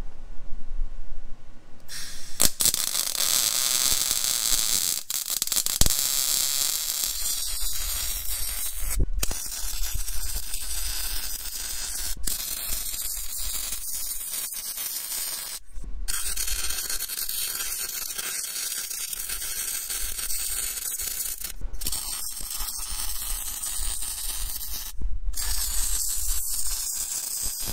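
Arc welding steel overhead: the crackling hiss of the welding arc starts about two seconds in and runs on, broken by several brief stops where the arc is cut and struck again.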